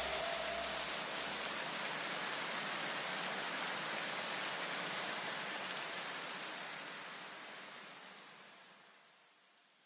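Even, rain-like hiss of noise trailing off the end of an electronic background track, with a few low tones dying away in the first two seconds; it fades steadily and is gone about eight and a half seconds in.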